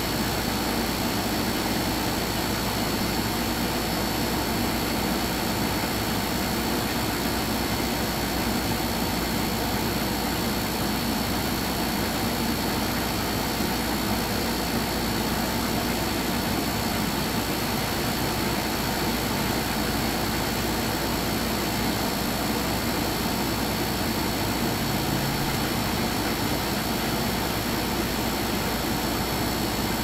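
A steady mechanical hum with a constant high whine over it, unchanging in level.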